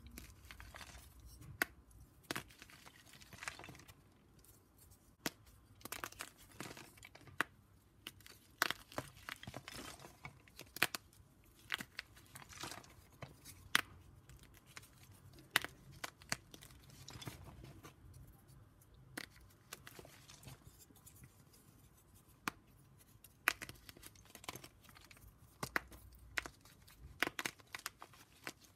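Blocks of gym chalk being shaved and crumbled close up: irregular crisp cracks and crunches, some much sharper than others, between stretches of soft scraping and crumbling.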